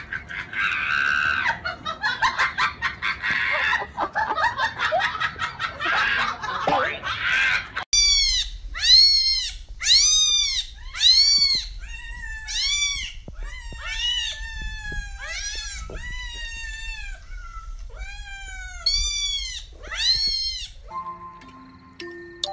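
Domestic cats meowing over and over, about one and a half short calls a second, for some thirteen seconds from about a third of the way in. Before that, a dense run of crackling, clicking noise; a few plain musical notes start near the end.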